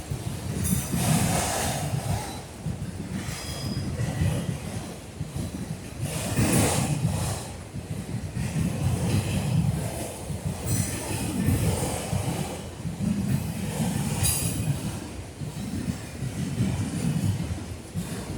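Norfolk Southern freight train's cars rolling past, a continuous rumble of wheels on rail that swells and fades. Several brief high-pitched wheel screeches rise above it.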